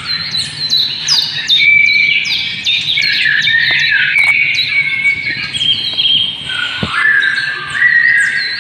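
Many small birds chirping together: a dense chorus of short, overlapping calls that fall in pitch. A single sharp click comes about seven seconds in.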